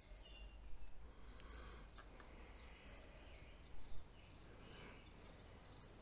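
Quiet handling of plastic wiring connectors, with a few soft clicks and rustles about a second in and again near the middle. Faint bird chirps sound in the background.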